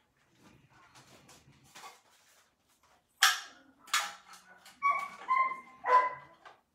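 Dog barking: five sharp barks in quick succession starting about three seconds in, the later ones higher-pitched and yelping.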